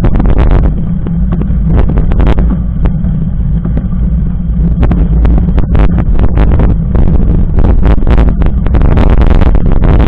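Mountain bike rolling fast over a gravel dirt road, picked up by a handlebar-mounted camera: a loud steady low rumble of wind and vibration with constant rattling and clatter from the bumps. The rattling eases for a few seconds after about a second, then comes back thick.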